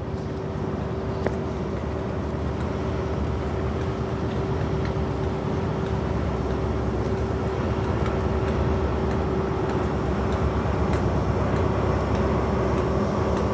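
Class 43 HST diesel power car idling at a standstill: a steady low engine rumble with a constant hum above it, growing gradually louder.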